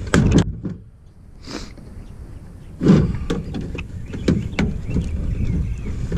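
A plastic trim tool prying at the Ford oval emblem on a plastic truck grille: a string of short plastic clicks and knocks as the tool works under the emblem, the loudest knock about three seconds in, over a steady low rumble.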